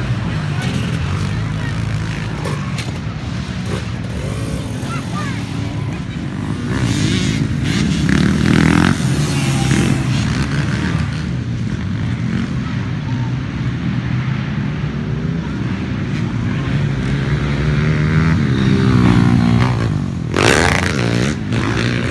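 Dirt bike engines running on the track, with revving that rises and falls as bikes pass, loudest about a third of the way through and again near the end.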